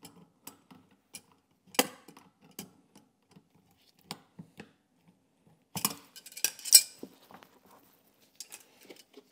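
Pliers clicking and clinking against a metal hose clamp as it is worked up a dishwasher hose: scattered small metallic clicks, with a louder run of clinks about six to seven seconds in.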